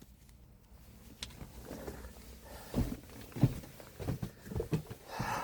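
Faint, scattered soft low knocks, with a short breath near the end.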